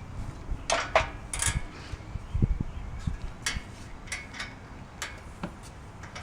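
Scattered light metallic clinks and taps of bolts, nuts and tools being handled against a barbecue grill's metal frame during assembly, with a couple of dull knocks about two and a half seconds in.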